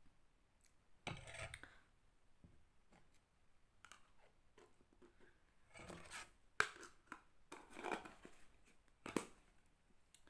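Faint, scattered clicks and short scrapes of a spoon and bowl being handled, with a cluster about a second in and more between six and nine seconds in.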